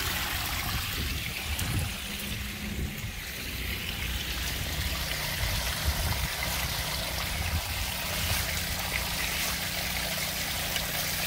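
Storm runoff trickling and running steadily into a yard drain grate that has just been cleared of clogging plant debris so the water can drain again.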